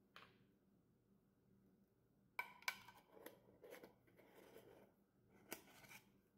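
Lid being fitted and screwed onto a small glass jar: a couple of sharp clicks, then a faint scraping and rubbing of the threads for about two seconds, and another click near the end.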